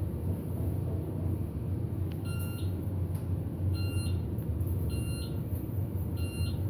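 Elevator car travelling down with a steady low hum, and four short electronic beeps about a second and a quarter apart, starting about two seconds in: the floor-passing signal as the car passes each floor.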